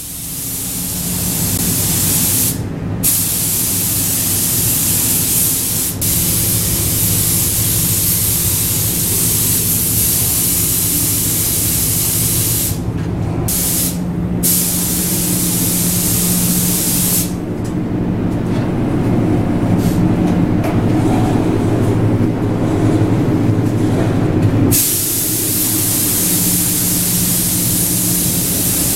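Compressed-air paint spray gun hissing loudly, cutting out briefly three times and easing off for several seconds in the second half as the trigger is let go, over a steady low hum.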